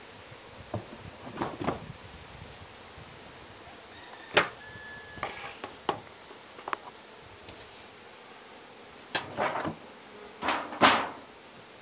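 Wooden beehive boxes and covers being lifted and set down during a hive inspection: a series of knocks and scrapes of wood on wood, the loudest cluster near the end.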